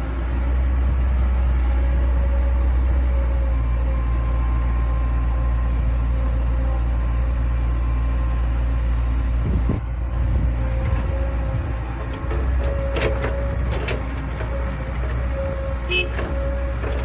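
Heavy diesel construction machinery running steadily with a deep, constant hum and a steady whine above it. A few sharp metallic clanks come near the end.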